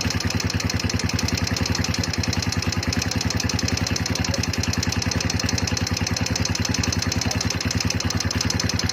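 Kawasaki Barako 175 single-cylinder four-stroke engine idling steadily, with a fast, even, loud ticking from the rocker arms. The tapping is the sign of valve clearance out of adjustment, which the owner sets out to cure with a tune-up.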